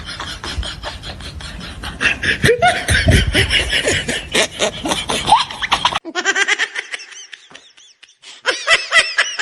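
Loud laughing in rapid pulses; about six seconds in it cuts to a different, higher laugh that stops briefly and starts again near the end.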